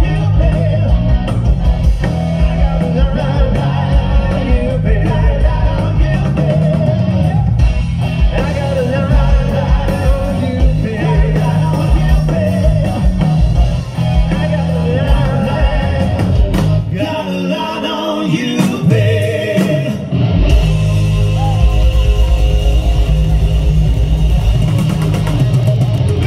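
Live rock band playing: a male singer over electric guitar, electric bass and drums. About seventeen seconds in the band drops to a thinner, quieter break for a few seconds, then comes back in fuller and louder.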